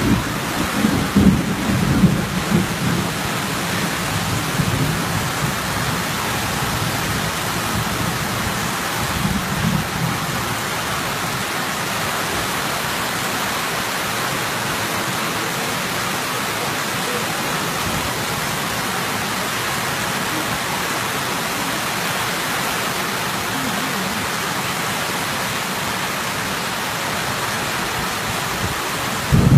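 Heavy tropical rain pouring steadily onto flooded, puddled ground. Brief low rumbles come through in the first few seconds and again about ten seconds in.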